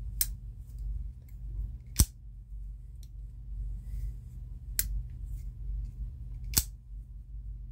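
YF Smart ball-bearing folding knife being flicked open and shaken shut: four sharp metallic clicks about two seconds apart, the loudest about two seconds in, as the blade snaps into lockup and swings back into the handle.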